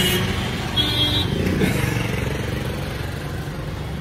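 Street traffic heard from an open-sided rickshaw on the move: engines running steadily with road noise, and a short high beep about a second in.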